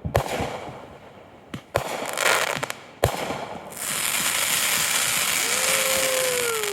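Consumer fireworks going off: three sharp bangs about a second and a half apart, then from about four seconds a steady loud hiss of shells bursting, with falling whistles near the end.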